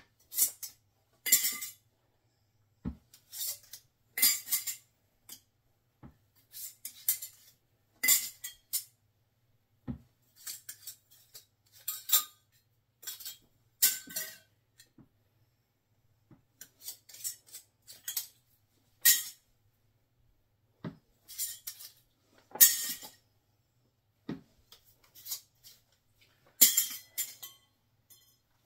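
Full glass pint canning jars with metal lids clinking against each other as they are picked up, wiped and set back down, in irregular clinks about once a second, a few with a dull thud on the table.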